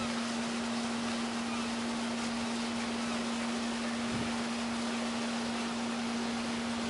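Boat engine running steadily under way, a one-note hum over an even rushing noise of engine and water, heard from aboard a lobster boat.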